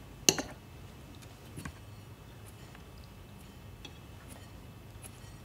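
Tableware clinking during a meal: one sharp clink of a glass or fork against a plate just after the start, then a few faint, irregular clicks of cutlery.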